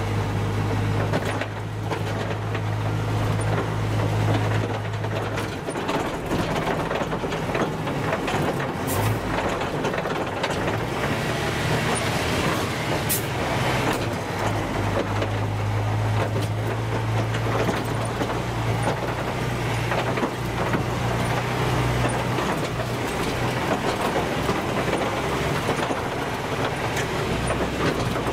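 OT-64 SKOT 8x8 armoured carrier's air-cooled Tatra V8 diesel running under way, heard from inside the cab, over a constant clatter of the hull and running gear. The low engine hum is strong for the first five seconds or so, eases off, and comes back strongly about halfway through before easing again.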